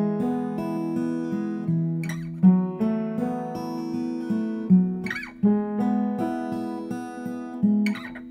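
Background acoustic guitar music: sustained strummed chords, with a sharper strum about every three seconds.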